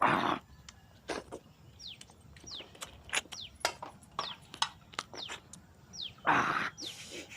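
Close-miked eating of chicken leg pieces: chewing clicks and lip smacks, with two louder crunching, rustling bursts, one at the start and one near the end. A run of short, high chirps falling in pitch repeats through it.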